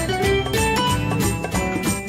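Light instrumental background music of short, plucked-sounding notes.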